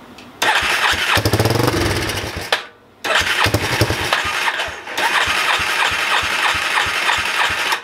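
A Yamaha Warrior 350's single-cylinder four-stroke engine catches and runs briefly on sprayed carb cleaner, dies about two and a half seconds in, then fires again and keeps running in regular low pulses until near the end. It is running off the carb-cleaner spray rather than through the carburettor, which shows the rebuilt top end now has compression and working valves.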